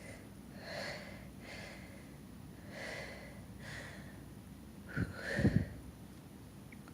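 A person's quick breaths through the nose, four soft ones in the first four seconds, then a short sneeze with a sharp start about five seconds in.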